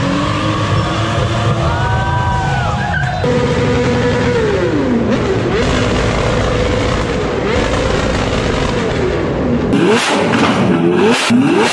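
Performance car engines revving hard in a string of short clips: first a Nissan Skyline R33 revving up and down, then an engine held at high revs that falls away and climbs again. About ten seconds in, a Lamborghini Aventador's V12 takes over with sharp rev blips.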